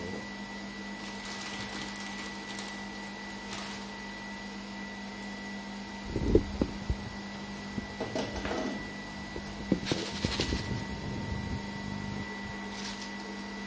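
A steady low hum with a thin high whine, and from about six seconds in, a scattered run of knocks and clatter from kitchen utensils being handled near a frying pan.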